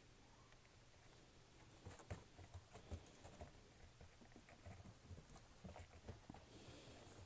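Faint, irregular light pattering of a dog's paws stepping about on a snow-dusted wooden deck, beginning about two seconds in.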